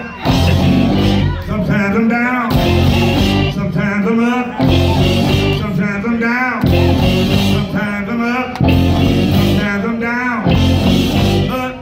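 Live gospel-blues band playing: electric guitar, drums and keyboard under singing with wavering, vibrato-laden notes, the phrases breaking and starting again about every two seconds.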